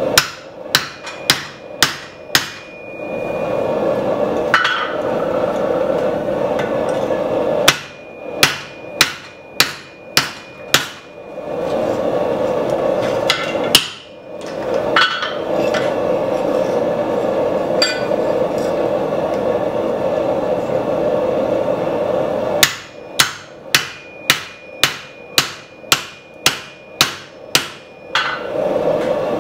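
Hand hammer striking a steel drift driven into the hot eye of a hatchet head on a swage block: three runs of sharp, ringing blows at about two a second, with pauses between them. A steady drone fills the pauses.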